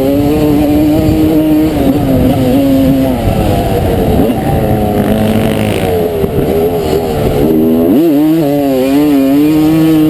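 1989 Honda CR250R's two-stroke single-cylinder engine racing under throttle, easing off to a lower pitch about three seconds in, then revving sharply back up around eight seconds in and holding high.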